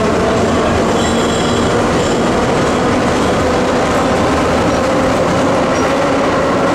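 Vintage subway train running along the track, heard from inside the car: a loud, steady rumble and rattle of wheels on rail, with a faint high wheel squeal about a second in.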